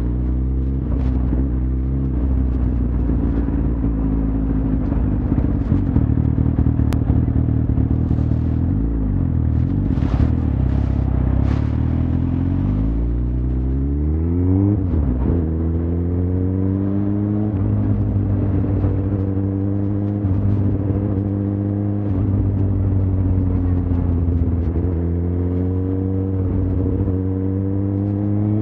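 Suzuki GSX-R1000's inline-four engine running under way, over a steady rushing noise. Its pitch climbs as it accelerates about halfway through, drops sharply at a gear change, then holds fairly steady at cruising speed.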